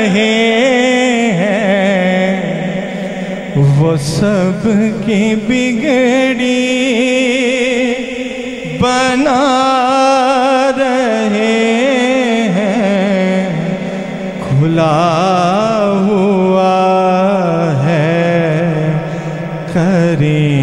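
A man singing a devotional kalam (naat) solo into a microphone with no instruments, holding long notes with wavering, ornamented turns and pausing briefly for breath between phrases.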